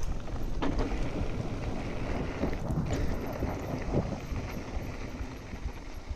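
Mountain bike rolling fast down a dirt and gravel trail: a steady rumble of the tyres on the ground, with many short knocks and rattles from the bike over the bumps and wind on the microphone. It gets quieter toward the end as the bike slows.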